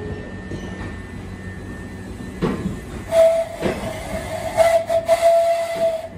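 Class 377 Electrostar electric multiple unit moving slowly along the platform, with a low rumble and two sharp clunks from the running gear. A steady high tone starts about halfway through and holds for about three seconds.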